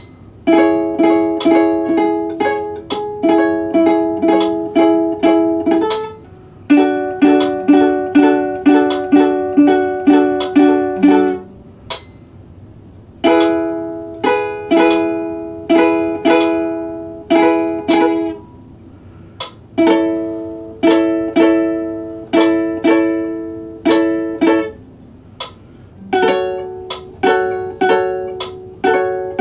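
Ukulele strummed in chords, nearly two strums a second, in phrases broken by short pauses of about a second.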